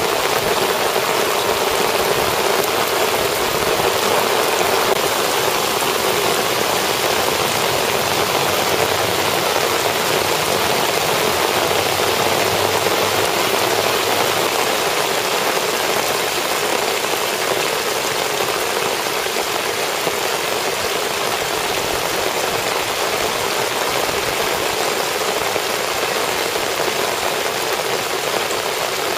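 Heavy rain pouring steadily onto flooded streets: a dense, even hiss of rain on standing water.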